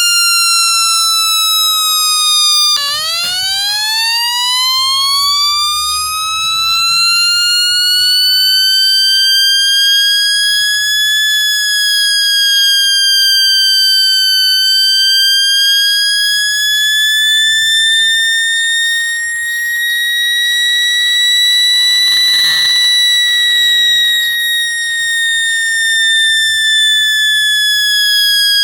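Homemade two-transistor electronic siren (TIP42 and BC548 oscillator) sounding through a small loudspeaker. Its buzzy tone drops sharply about three seconds in, climbs slowly over several seconds, then wavers up and down high for the rest.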